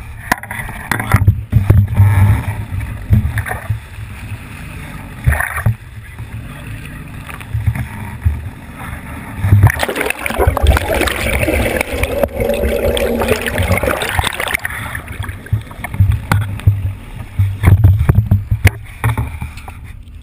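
A fishing boat on open water: uneven low rumbling and buffeting on the microphone with water noise. For a few seconds in the middle, a louder rush of bubbling water takes over.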